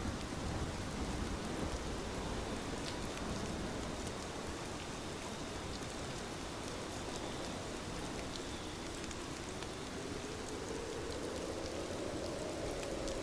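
Steady rain falling, an even hiss with scattered sharper drop taps.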